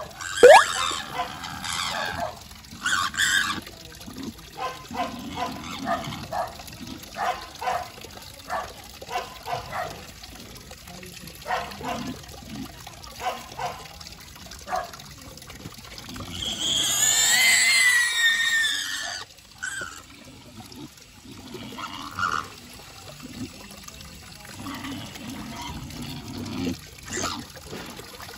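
A small pig giving many short grunts, then a loud squeal lasting about two and a half seconds past the middle, with water running from a tap into a plastic basin.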